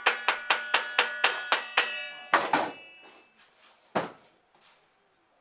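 Quick, even tapping of metal on a hand tool, about four strikes a second, each leaving a metallic ring. Then comes one heavier knock with a longer ring, and a single sharp knock about a second and a half later.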